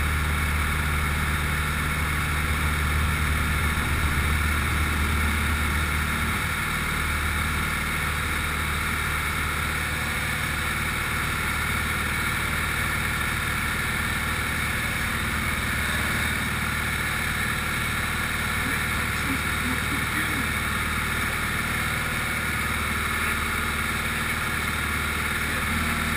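Grob light aircraft's piston engine and propeller at take-off power, heard from inside the cockpit: a steady, loud drone through the take-off roll, lift-off and climb. The low hum is strongest for the first six seconds or so.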